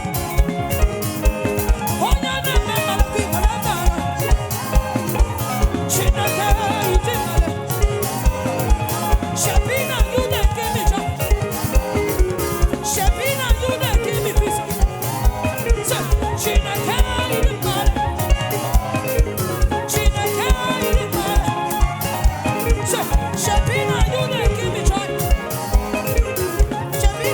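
Live gospel praise band music with a steady drum beat and a melodic lead.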